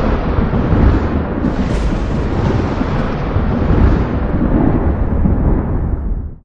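Thunder rumbling and rolling on through a thunderstorm, loud and deep with repeated swells. It cuts off abruptly to silence just before the end.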